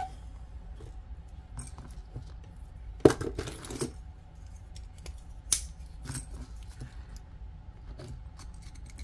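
Small metal clicks and clinks from a gold-tone chain and hinged locket being handled and pried open. There is a louder rattle about three seconds in and a sharp click about five and a half seconds in, over a faint steady hum.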